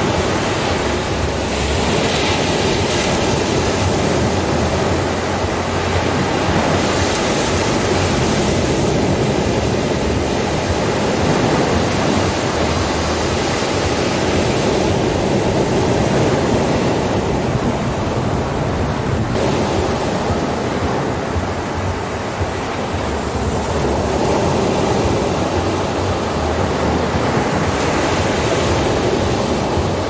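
Ocean surf: small waves breaking and washing up a sandy beach, a steady hiss that swells and eases every several seconds.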